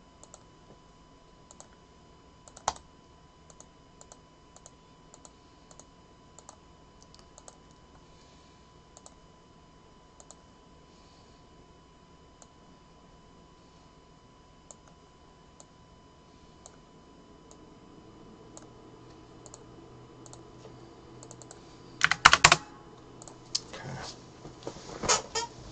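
Sparse, faint computer keyboard and mouse clicks. About 22 seconds in comes a short, louder burst of clattering knocks, with a few more near the end.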